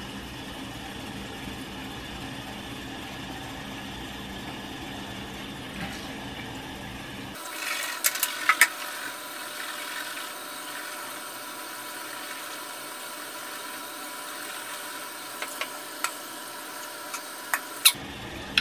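Water running and rinsing at a bathroom sink: a steady watery hiss, with a few sharp clicks about eight seconds in and again near the end.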